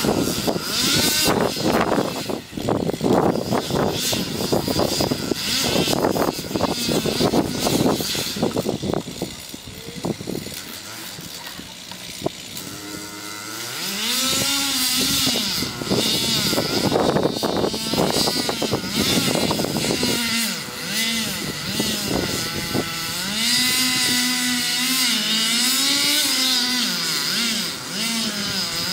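For about the first ten seconds there is a loud, rough noise full of cracks and rattles. From about halfway through, a two-stroke chainsaw engine revs up and down repeatedly, its pitch rising and dipping.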